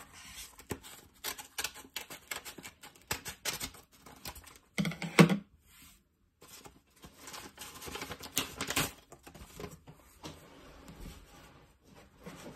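Cardboard packaging being opened by hand: irregular rustling and crinkling with small clicks and taps, and one louder bump about five seconds in.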